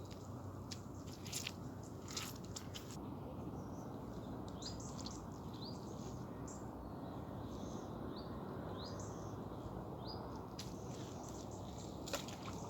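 Outdoor ambience: a steady low background rush with a bird giving short rising chirps through the middle, and a few sharp clicks near the start and again near the end.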